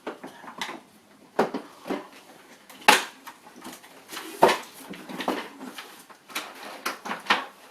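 Sharp knocks and clicks of toy play-shop parts being handled and pushed together during assembly, about half a dozen irregular hits, the loudest about 3 and 4.5 seconds in.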